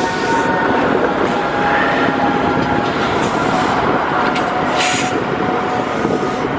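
A streetcar running along its street rails: a steady, loud rolling noise with a few thin whining tones over it and occasional clicks.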